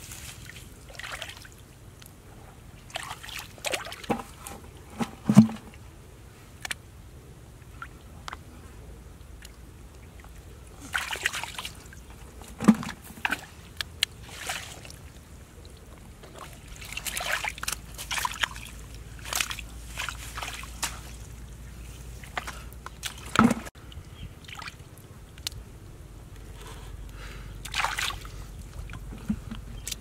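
Hands sloshing and splashing in shallow muddy water and pulling at wet straw while groping for fish, in irregular bursts. Three sharper, louder splashes or slaps stand out, about five, thirteen and twenty-three seconds in.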